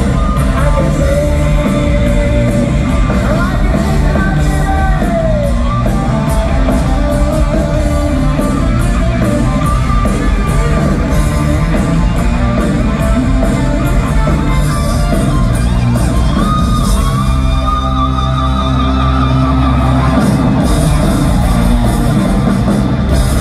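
Hard rock band playing live through an arena PA: distorted electric guitars, bass and drums, with singing, loud and echoing through the hall. A guitar or voice slides down in pitch about five seconds in.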